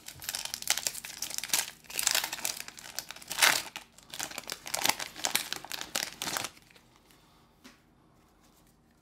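Pokémon card booster-pack wrapper crinkling and tearing open in the hands, a run of irregular crackles that stops about six and a half seconds in.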